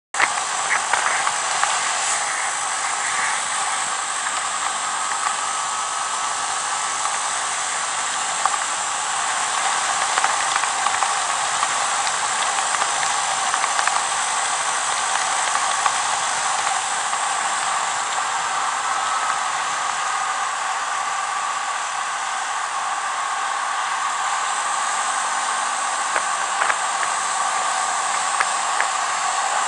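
Steady rushing wind and road noise of a moving Yamaha Majesty S scooter, heard through its handlebar-mounted camera, with a few faint clicks.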